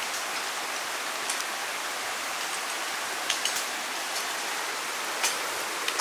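Mountain stream rushing steadily over rocks at a ford, with a few faint clicks.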